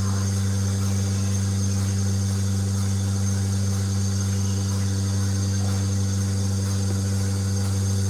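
Milking machine's motor running steadily: an unbroken low hum with a fainter higher overtone and a thin high whine above it.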